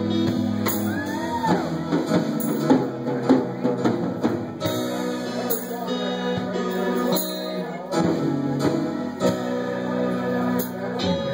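Live rock band playing an instrumental stretch between vocal lines: electric guitar over bass and a drum kit, with a tambourine shaken along to the beat.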